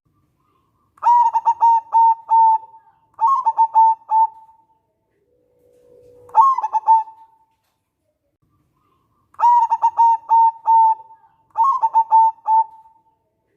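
A zebra dove (perkutut) singing. Phrases of quick stuttering coos, each ending in a longer held note, come in two runs of three phrases with a pause between. A soft low steady note leads into the last phrase of each run.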